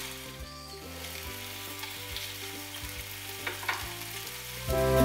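Chicken satay skewers sizzling in a hot ridged grill pan greased with coconut fat, a steady frying hiss. Music comes in loudly just before the end.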